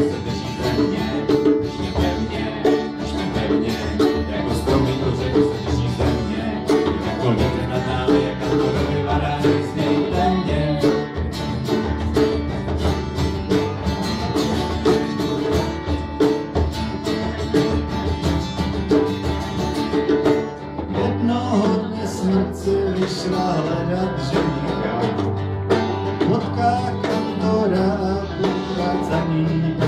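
Live acoustic band with a banjo and double bass playing, and a man singing into a microphone.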